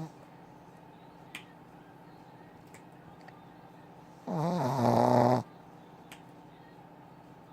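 Snoring: one loud, pitched snore a little over a second long, just past halfway through, with quiet in between snores.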